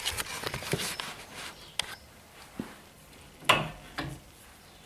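Brake caliper parts being fitted back by hand: scattered metal clicks and rattles, then a single louder knock about three and a half seconds in.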